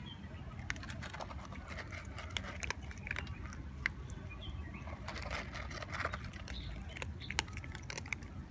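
Several cats crunching dry kibble from a bowl: a scatter of small, irregular crunches and clicks, over a steady low rumble.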